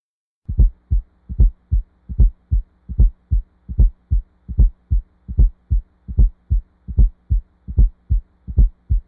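Recorded heart sounds with a fourth heart sound (S4 gallop): a faint low thud just before each strong first heart sound, then the second heart sound, about 75 beats a minute, over a faint steady hum. The fourth heart sound is a sign of ventricular hypertrophy, hypertension or aortic stenosis.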